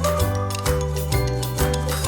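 Background music with a steady beat, a bass line changing note about twice a second and sustained melody notes over it.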